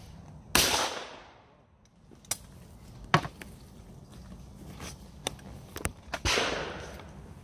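Two shotgun shots from an over-and-under, one about half a second in and one near the end, each with a ringing echo that dies away over most of a second. A few short, sharp clicks come between them.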